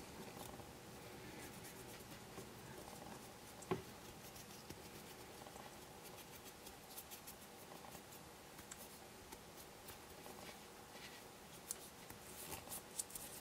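Faint scratching of a cotton swab scrubbing the housing of a Hornby ringfield model-train motor, with one sharp click about four seconds in and a few light taps near the end.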